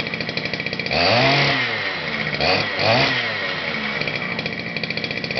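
Small two-stroke gasoline engine of a 1/5-scale RC truck idling with a rapid, steady beat while it warms up after a cold start. Three times, starting about a second in, it is briefly revved, the pitch rising and falling back to idle.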